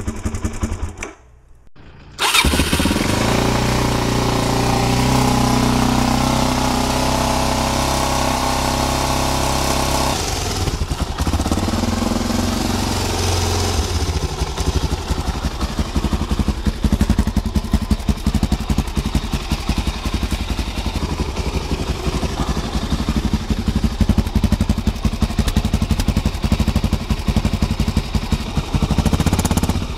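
Suzuki DR-Z400 single-cylinder engine running through an Arrow aftermarket exhaust, after a second-long gap near the start. It runs steadily at first, then more roughly, with repeated louder throttle blips through the second half.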